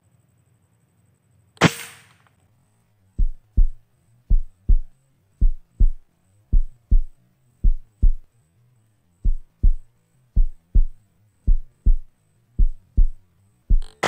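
A scoped rifle fires once, a sharp crack about two seconds in. Then a heartbeat sound effect follows: pairs of low thumps, a pair about once a second. A second loud shot comes at the very end.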